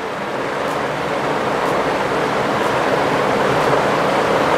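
Steady rushing noise that grows louder over the first two seconds and then holds level, with a faint tick repeating about once a second.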